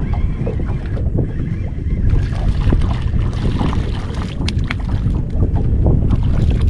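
Wind buffeting the microphone as a low, steady rumble. A hooked fish splashes at the water's surface beside the boat, with a few short, sharp splashes about four and a half seconds in.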